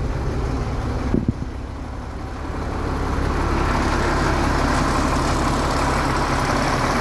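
International DT466E inline-six turbo diesel idling steadily, with a short knock about a second in. About three seconds in, the engine sound grows louder and fuller as the phone moves from inside the cab out the open door.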